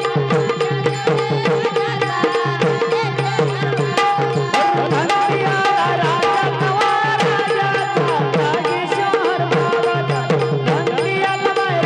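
Marathi bhajan music: tabla playing a fast, steady beat under held melodic notes.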